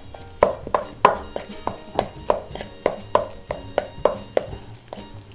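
Metal spoon stirring a mashed sweet potato filling in a stainless steel mixing bowl, knocking the bowl in a quick, even rhythm of about three strikes a second, each with a bright metallic ring.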